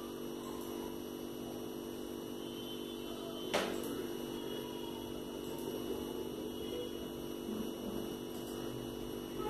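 Steady electrical mains hum, with a single sharp click about three and a half seconds in.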